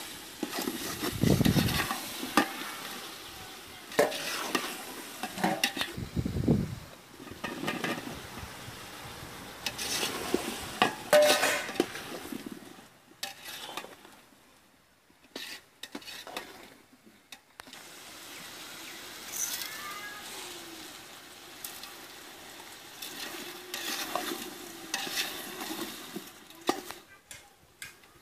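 Metal ladle stirring and scraping in a large aluminium pot of vegetables frying over the fire, with clinks and knocks against the pot and a light sizzle; the stirring pauses for a few seconds about halfway.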